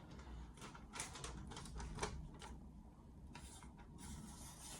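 A sheet of paper rustling as a deliberately blunted kitchen knife's edge is drawn across it in a paper-cutting test, in a series of short, faint scrapes and crinkles. The dull edge scrapes instead of slicing.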